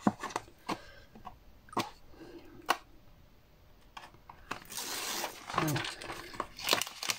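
Paper and card being handled on a work table: about five sharp taps and clicks, with paper rustling for about a second and a half towards the end.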